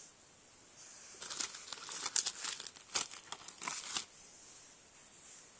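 Plastic sticker-pack packaging crinkling as the packs are handled and shuffled, in a flurry of sharp crinkles from about a second in to about four seconds in, then softer rustling.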